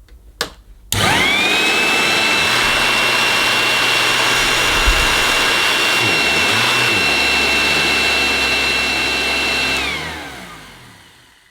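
Goblin Roto hand-held vacuum cleaner switched on with a click, its motor spinning up within a second to a loud, steady high-pitched whine. Near the end it is switched off and runs down, the whine falling in pitch and fading. The motor had just given off a burning smell, which the owner takes for the motor burning, though it sounds okay.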